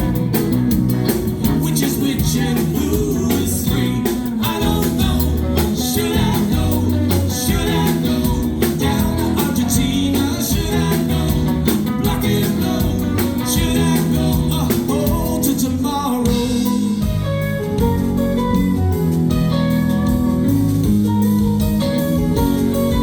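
Live band playing a song with guitar and drum kit. The cymbals and drums thin out about sixteen seconds in.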